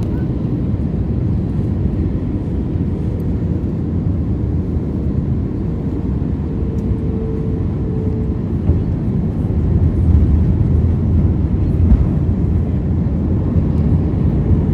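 Steady low rumble of a commercial airliner heard from inside the passenger cabin, growing somewhat louder about ten seconds in.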